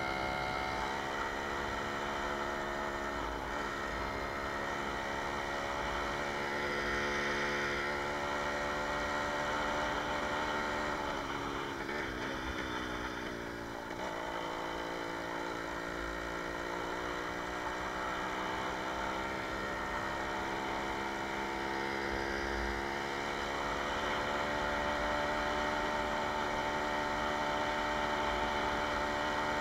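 Jawa 20 Pionýr moped's 50 cc two-stroke single-cylinder engine running steadily under way, its pitch dropping and climbing back up about halfway through. A low rumble sits underneath.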